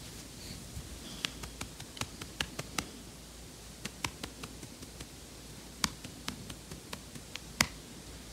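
Hand handling noise while a sleeping dog is petted: scattered light clicks and faint rustling, with two louder clicks in the second half.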